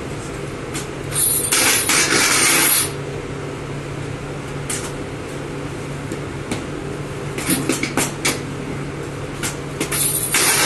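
Bakery work sounds: scattered knocks and clatter of tools over a steady machine hum, with two loud bursts of hissing lasting about a second each, one near the start and one at the very end.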